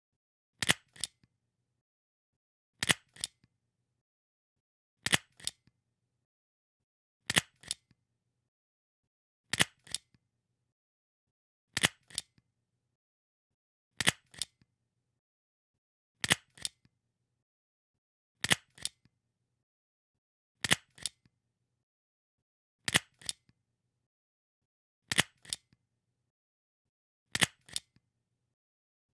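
Stapler being pressed thirteen times, about once every two seconds; each press is a sharp double click followed by a faint tick.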